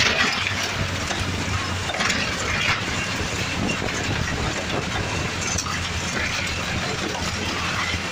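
Toyota 1NZ-FE inline-four engine running at a steady, low engine speed while the Lada VAZ 2105 drives, heard from inside the cabin, with road noise and many small rattles and clicks.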